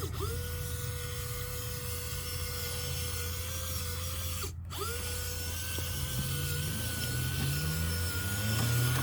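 KMS RC-scale winch motor running on a 3S battery, a steady whine as it spools the line. It cuts out for an instant about halfway through and then runs on, with a lower rising whine joining near the end.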